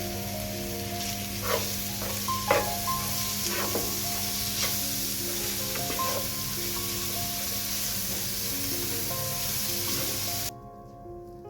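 Food sizzling as it fries in a pan, with a few utensil strokes stirring it in the first half; the sizzle cuts off suddenly near the end.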